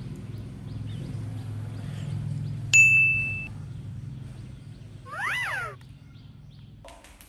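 A single sharp ding about a third of the way in, ringing on as one steady tone for under a second. A short animal call that rises and falls in pitch follows a couple of seconds later. A steady low hum runs underneath and stops near the end.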